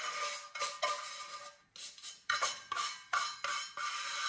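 Stiff plastic-bristle brush scrubbing the rust on a thick iron tin-can lid in quick back-and-forth strokes, with a faint metallic ring. There is a short pause about halfway, then faster strokes, about three a second.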